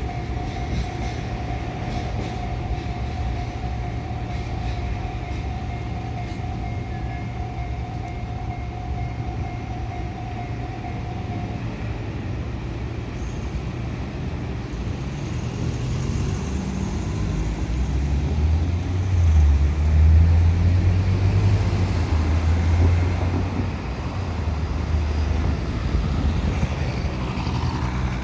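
Diesel locomotive running light on a freight line, without wagons, moving on past a level crossing. Its steady engine drone holds for about twelve seconds and then drops away, followed by a deeper rumble that swells a little past the middle and eases off again.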